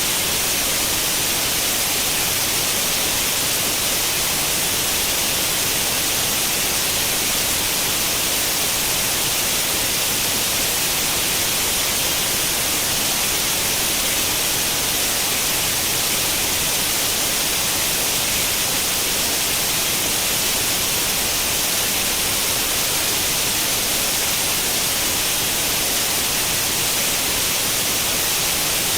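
Steady white noise like the static of an old tube television tuned to no channel: an even, unbroken hiss, brightest in the treble.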